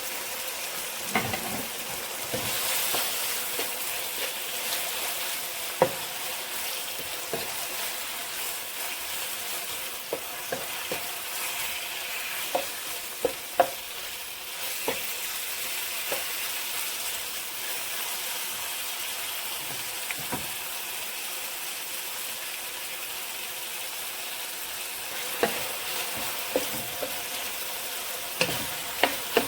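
Strips of boneless chicken breast sizzling steadily as they fry in olive oil in a pan, with scattered clicks of a utensil stirring them against the pan.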